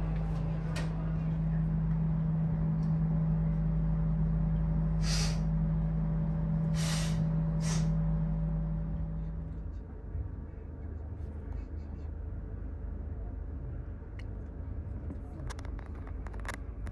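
Steady low electrical hum inside a standing railway passenger coach, with three short sharp hisses of air at about five, seven and nearly eight seconds in. The hum stops abruptly about ten seconds in, leaving a quieter low rumble with a few faint clicks.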